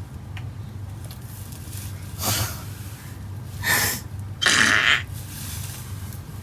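Three short hissing fart noises played as a prank, the last the longest and loudest at about half a second, over a steady low hum.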